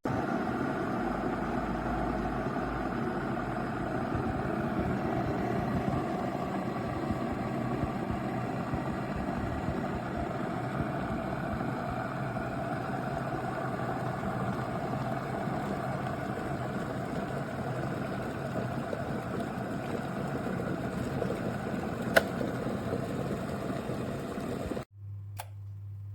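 Electric kettle (Aigostar Adam 30GOM, glass, 2200 W) heating water, a steady rumble of water working up to the boil. A single sharp click comes about 22 seconds in, and the rumble cuts off abruptly near the end, leaving a low hum.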